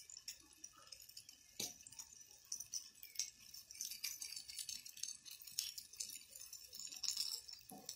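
Faint crinkly rustling with scattered small clicks: onion slices and crisp lettuce leaves being handled and laid on a plate.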